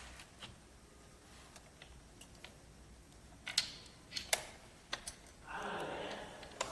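A few sharp, faint clicks from handling the battery pack and lock of an electric bike, spaced under a second apart, followed near the end by a brief soft rustle.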